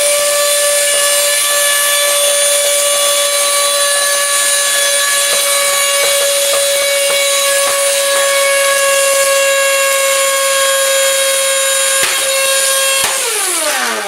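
Euroflex Monster handheld vacuum motor running with a steady high-pitched whine and rushing air, with a few clicks of plastic bits being sucked in. About a second before the end the motor shuts itself off and winds down with a falling whine.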